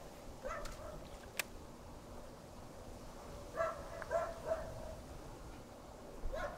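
A dog barking in short runs of two to four barks, about half a second in and again from about three and a half to four and a half seconds in. A single sharp click about one and a half seconds in.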